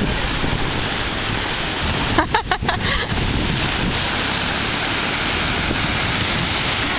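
Ocean surf breaking and washing in, a steady hiss of waves, with wind buffeting the microphone. A few short knocks come about two seconds in.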